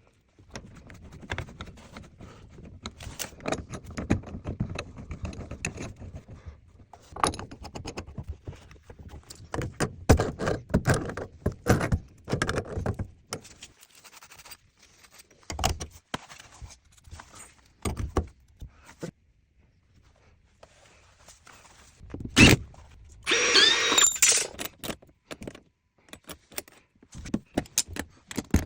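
Metal tools and fittings handled during plumbing work: irregular clinks, rattles and knocks, with a sharp knock about three quarters of the way through followed by a brief squeal.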